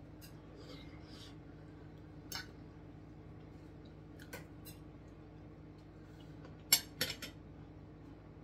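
Metal knife and fork clinking and scraping against a dinner plate while food is cut and scooped: a few separate clicks, then a quick run of three sharper clinks about seven seconds in. A low steady hum runs underneath.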